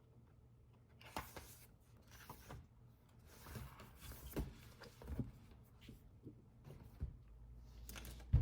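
Light handling sounds: scattered rustles and small knocks of objects being moved about, with a sharper knock near the end.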